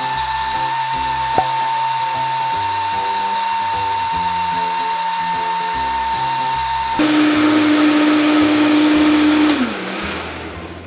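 Vitamix TNC 5200 blender motor running at full speed with a steady high whine while it blends oats, almonds and apple. The whine drops to a lower pitch about seven seconds in. Near the end the blender is switched off and the motor winds down.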